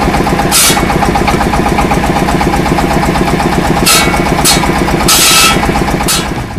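An engine running steadily with a rapid even pulse, broken by about five short bursts of hissing.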